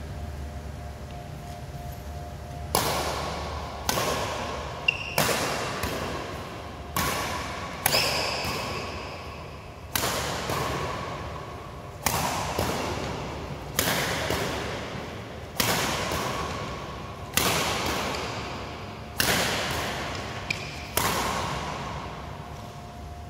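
Badminton rally: racket strings hitting a shuttlecock back and forth, a dozen or so sharp hits roughly every two seconds starting almost three seconds in, each ringing out in the echo of a large hall.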